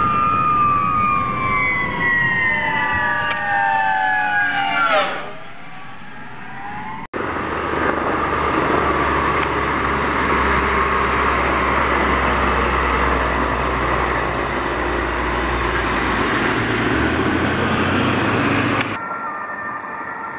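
Fire truck siren with a slowly falling pitch, dropping sharply about five seconds in as the truck passes. After a sudden cut, another fire truck drives past with its engine and road noise running steadily until it cuts off near the end.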